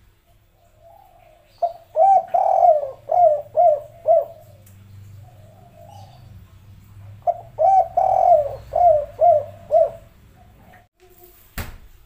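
Spotted dove cooing: two phrases about five seconds apart, each a run of five or six low coos with one longer, louder note near its start. A single sharp knock sounds near the end.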